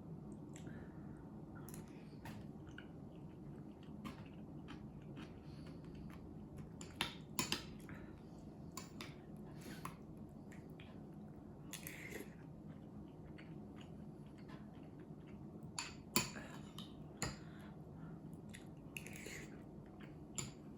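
A person eating: chewing, with scattered clicks and taps of dishes and utensils, the sharpest three a little after a third of the way in and again past the three-quarter mark, over a steady low hum.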